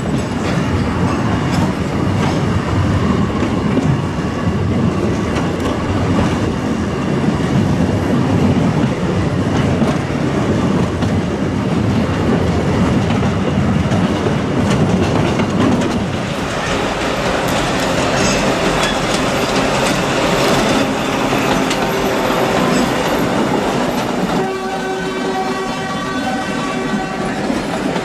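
Narrow-gauge forest railway train running, its wheels clattering over the track. Near the end a horn sounds as one steady tone held for about three seconds.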